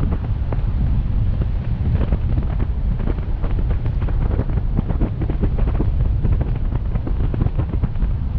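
Wind from driving buffets the microphone of a car-mounted action camera, giving a heavy, steady rumble broken by many scattered crackles.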